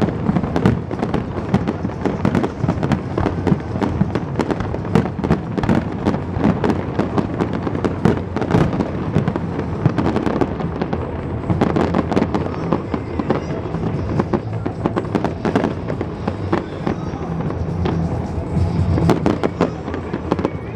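Aerial fireworks bursting and crackling in rapid succession, many bangs a second throughout, over a music soundtrack.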